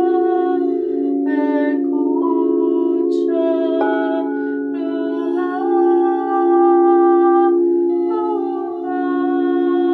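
Sound-healing music: several sustained singing-bowl tones held together as a steady drone, with a wordless melody moving in steps between held notes above it.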